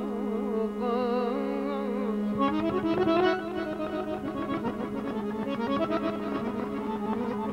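Azerbaijani folk band playing an instrumental break between sung verses: a garmon (accordion) melody with vibrato over a steady held drone, with a drum coming in with rapid strokes about two and a half seconds in.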